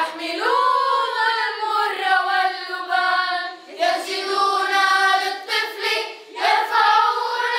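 Children's choir singing, with long held notes in phrases broken by short pauses for breath.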